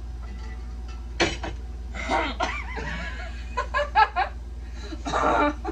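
People giggling and laughing in several short bursts, with a steady low hum underneath.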